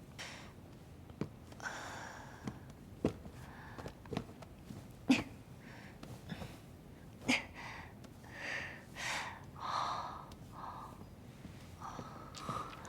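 Quiet handling noises in a small room: about five sharp knocks and clicks spread out, with short rustling, breath-like hisses between them.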